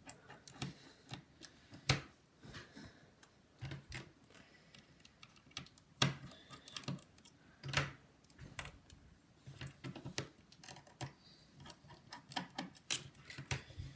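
Irregular small clicks and taps of a precision tri-wing screwdriver working the screws of an iPhone 7's internal metal bracket, with a few louder sharp clicks.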